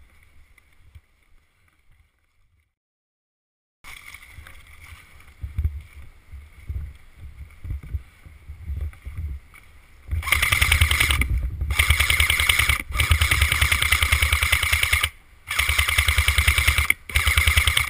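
Airsoft electric light machine gun, an ARES Stoner 96, firing long full-auto bursts from about ten seconds in, a fast even rattle broken twice by short pauses. Before that, quieter thuds and rustling.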